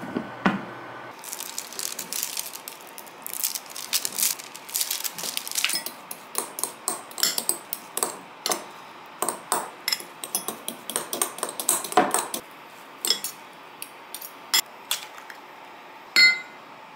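A metal fork clinking and scraping against a glass bowl as it mixes shredded imitation crab sticks: a long, uneven run of light clinks. A pot lid goes down with a knock in the first second, and a single sharper clink with a short ring comes near the end.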